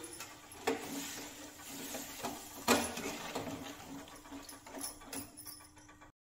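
Metal ladle knocking and scraping against a metal kadhai as cauliflower and peas are stirred in their just-added water, about half a dozen clanks with the loudest near the middle. A soft sizzle fades away underneath as the water heats.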